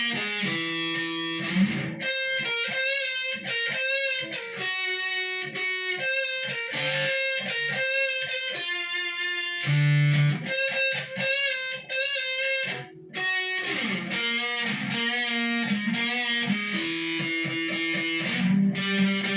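Squier Sonic Stratocaster electric guitar played through an amp: a run of melodic single-note phrases, many of the held notes wavering in pitch with vibrato or bends, with a brief gap about thirteen seconds in.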